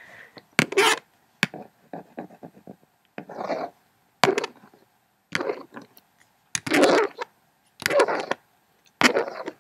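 A hairbrush drawn through hair close to the microphone, about eight brushing strokes roughly a second apart, with a few light clicks between them.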